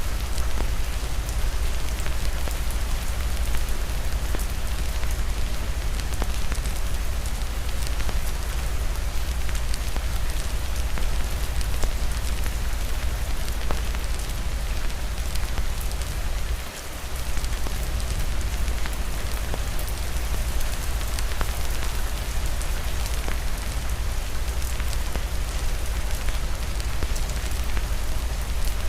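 Steady heavy rain with fireplace crackling mixed in, a few faint crackles standing out from the rain. The rain briefly drops off about seventeen seconds in, then carries on.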